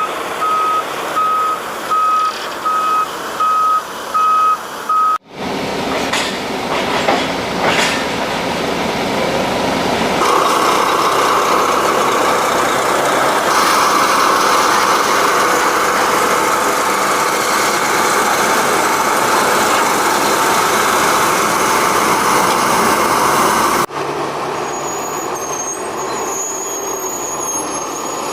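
A heavy machine's reversing alarm beeping at a single steady pitch, about one and a half beeps a second, over engine noise. About five seconds in it cuts to heavy machinery running, with a few clanks at first and then a steady engine drone.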